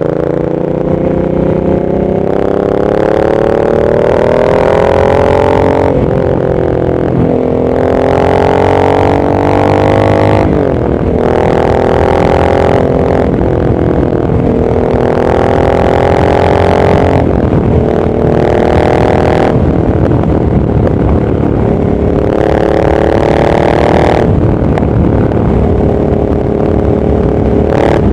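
Triumph Thruxton parallel-twin motorcycle engine being ridden. It repeatedly rises in pitch under throttle for two to three seconds, then drops sharply before climbing again.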